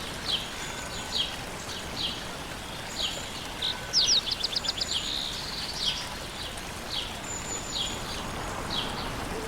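Quiet village ambience: a bird repeating short falling chirps about once a second, with a quick trill of rapid notes about four seconds in, over a steady background hiss.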